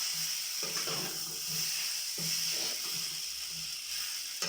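Spiny gourd, potato and chickpea curry sizzling steadily in a pan, with one sharp knock near the end.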